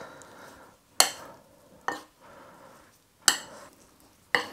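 Metal spoon stirring flour-coated raw beef chunks in a ceramic bowl to coat them in seasoned flour: four sharp clinks of spoon against bowl, with soft scraping of the meat in between.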